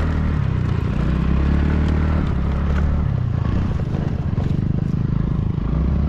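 Motor vehicle engine running steadily during a ride, its low drone easing and rising a little, with scattered rattles and clatter over it.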